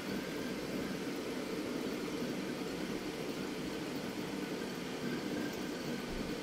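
Steady low hum with a fainter hiss above it: the running pumps and circulating water of a reef aquarium, with no distinct events.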